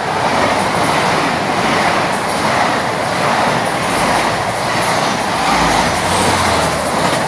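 GWR Hitachi Intercity Express Train passing through the station at speed: a loud, steady rushing rumble of wheels on rail as the carriages sweep past.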